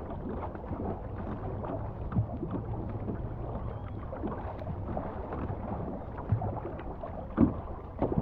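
Tandem racing canoe being paddled hard: a steady wash of water along the hull with the splash of paddle strokes. A few sharper strokes stand out near the end.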